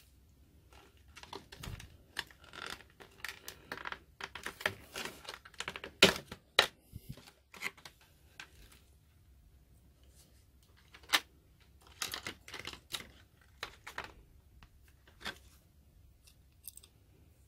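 Stiff clear plastic packaging crackling and clicking as hands pull it apart and lift it off a model locomotive, in two busy stretches, with a few sharper snaps.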